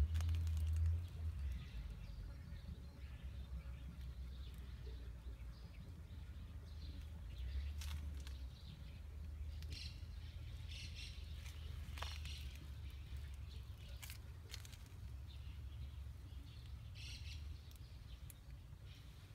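Faint bird chirps from time to time, clustered after the middle and again near the end, over a steady low rumble on the microphone that is loudest in the first second.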